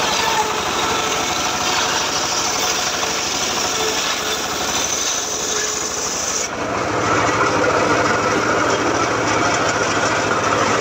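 Homemade table circular saw driven by a stationary diesel engine, ripping a teak plank with a steady, loud cutting noise. About six and a half seconds in the cutting noise stops suddenly, leaving the engine running and the blade spinning free.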